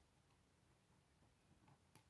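Near silence: room tone, with a couple of faint plastic clicks near the end as K'nex pieces are handled.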